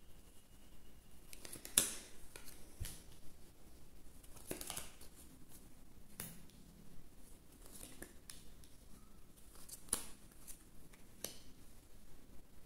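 Lenormand cards being drawn off the deck and laid one by one onto a cloth-covered table. There are faint sliding rustles of card stock and a handful of sharp card snaps a few seconds apart, the loudest about two seconds in.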